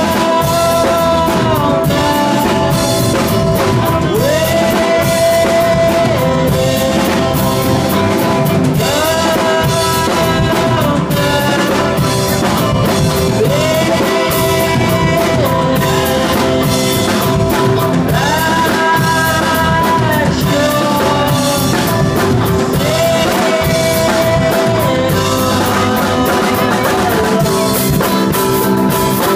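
Live rock band playing loudly: electric guitars over a drum kit, with a recurring melody line that slides up into held notes.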